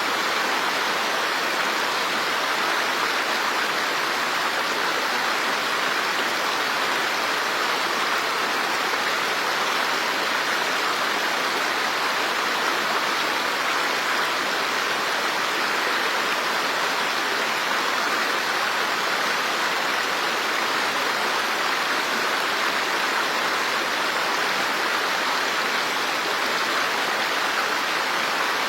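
Flowing water, rushing steadily and evenly, with no change or separate splashes.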